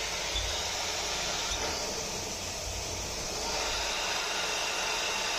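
CNC mill spindle running steadily as a drill bores an oil channel into an aluminium engine case: an even hiss with a faint high whine over it.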